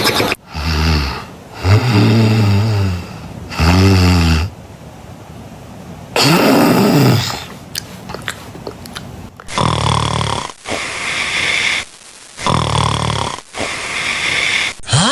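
A person snoring in several different styles one after another: rasping, pitched snores of about a second each with short pauses between them, and one drawn-out snore that rises and then falls in pitch about six seconds in.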